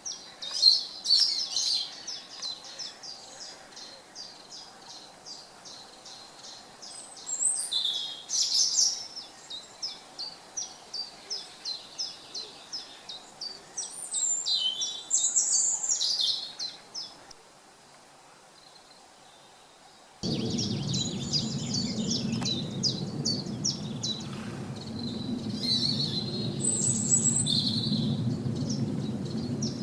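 Woodland birds singing: one bird repeats a short high chirp about twice a second while others add louder brief phrases. Near the middle the birdsong drops away for a couple of seconds. Then the steady rush of a beck's running water cuts in suddenly, with the chirping going on over it.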